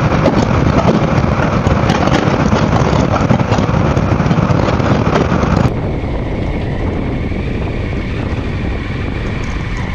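Wind rush and buffeting on a helmet-mounted microphone while riding a Honda ADV350 scooter at speed, mixed with engine and road noise. About six seconds in it drops suddenly to a duller, quieter rush with a faint steady high whine.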